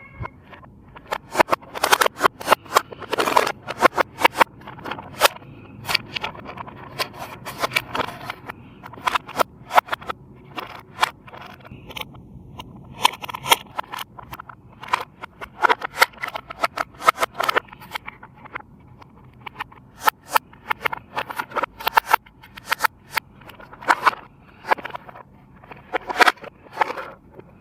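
Rapid, irregular clicks, crackles and scrapes of handling, with a few louder snaps.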